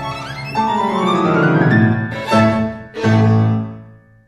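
Instrumental background music: a rising run of notes, then two long held chords that fade away near the end.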